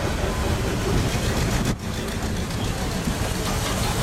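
Passenger railway carriage rolling slowly along the track: a steady low rumble of wheels on rails, with a brief drop in loudness a little before halfway.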